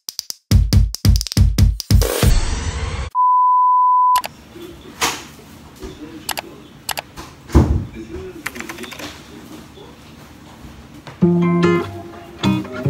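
Edited intro sound: a quick run of heavy bass thumps, then a steady electronic beep for about a second, then a quieter stretch with a few sharp knocks. Guitar music comes in near the end.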